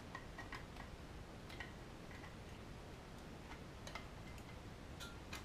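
Faint, scattered light clicks of a 7mm-scale model locomotive's plastic bogie side frame being handled and pressed onto its mounting lugs, a few isolated ticks a second or more apart with two close together near the end.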